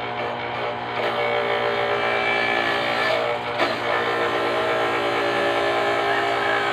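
Small motorized root-crop grater's electric motor running with a steady whine while root pieces are pushed into its grater with a stick. It gets louder about a second in, and there is one sharp knock about three and a half seconds in.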